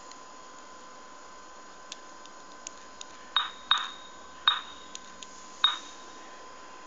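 Mobile phone keypad giving four short electronic beeps in the middle, among several faint key clicks, over a steady high-pitched tone.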